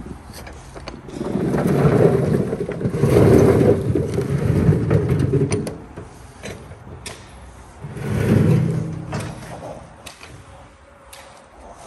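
A wheelbarrow load of potatoes rumbling and tumbling out of the tipped tray onto grass, in two pours: a long one starting about a second in, then a shorter one around eight seconds in.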